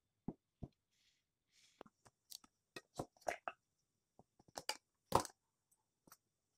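Irregular light clicks and knocks of things handled on a table, among them a mini chopper's plastic bowl and its motor head. It starts with two soft thumps, the loudest knock comes a little past the middle, and the chopper motor is not running.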